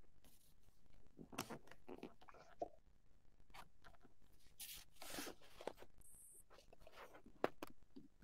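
Faint, scattered rustles and a few sharp clicks coming over open microphones on a video call, with no speech.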